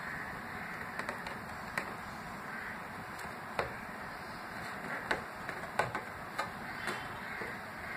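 A cardboard gift box being handled and its lid worked off on a glass desk: scattered light taps and knocks, a few at a time, over a steady hiss.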